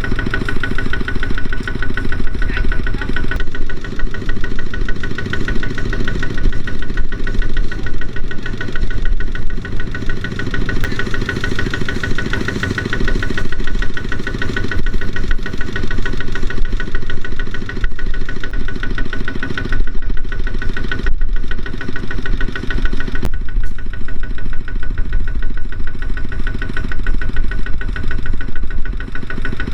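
Kubota ZT120 single-cylinder diesel engine running steadily with a fast, even chugging.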